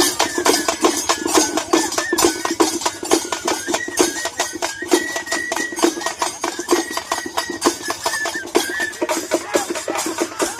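Music with fast, dense drumming and a high melody line that steps between held notes above it.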